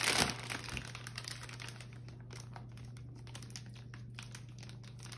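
Plastic bag of mozzarella cheese crinkling as the cheese is shaken out over a pizza, with light scattered ticking. A faint steady low hum runs underneath.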